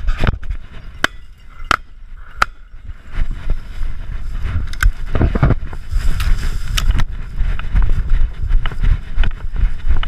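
Rustling and wind noise on the microphone while walking through field cover, with four sharp clicks evenly spaced in the first few seconds.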